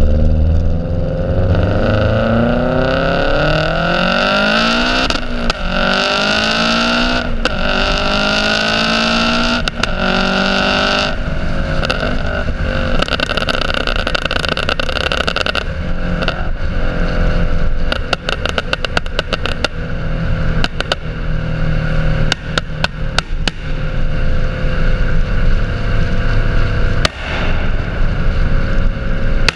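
Subaru Impreza WRX STI's turbocharged flat-four through an HKS Carbon exhaust, heard right at the tailpipe, pulling hard with its note rising through the gears and brief breaks at the shifts. After a lift off the throttle, a quick run of sharp pops and crackles comes from the exhaust on the overrun, with more scattered pops over a steadier engine drone near the end.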